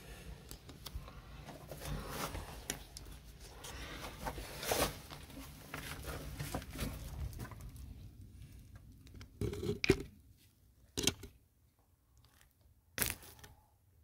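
Handling noise of a phone camera being pushed through a small hole in concrete: rustling and scraping for the first several seconds, then quieter, with a few sharp knocks near the end.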